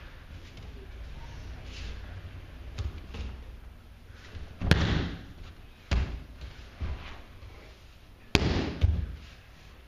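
Bodies and hands hitting a padded dojo mat as an aikido partner is taken down and pinned in an ikkyo: a few dull thuds, the loudest about halfway through and a sharp pair near the end.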